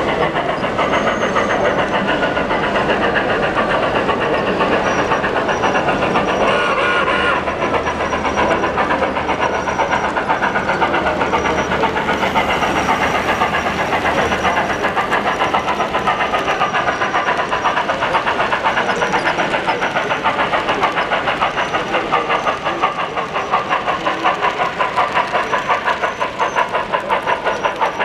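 HO-scale model trains running on a layout: a steady fast clatter of wheels on the track as a long intermodal train behind an orange diesel passes close. Near the end the sound pulses more strongly as a model 2-10-2 steam locomotive with a sound decoder draws near.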